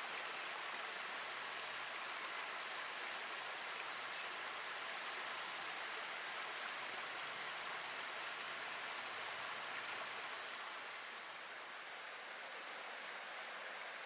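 Shallow stream trickling and splashing steadily over small moss-covered tufa (sinter) steps, with only a low flow of water; slightly quieter from about ten seconds in.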